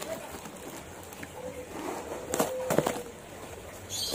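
A tape-wrapped cardboard parcel is pulled and torn open by hand. The cardboard and packing tape rustle and tear, with a couple of sharp cracks a little past the middle.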